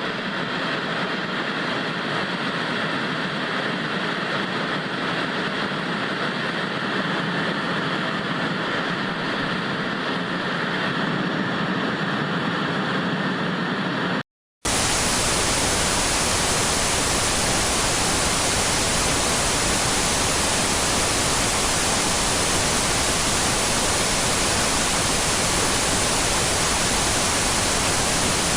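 TV static hiss. For about fourteen seconds it is a duller hiss with its weight in the middle; it then cuts out for a moment and comes back as a brighter, more even hiss.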